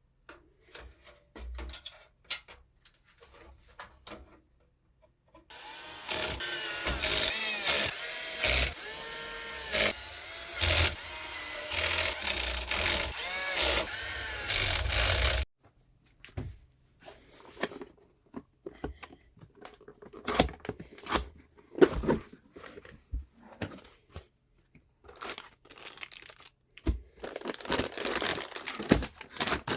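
Clicks, taps and rattles of PC components being handled and fitted. In the middle, a loud continuous sound with a wavering pitch starts abruptly and cuts off suddenly after about ten seconds.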